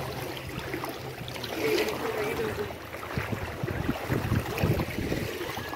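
Floodwater flowing and sloshing, with uneven low knocks and thumps in the second half.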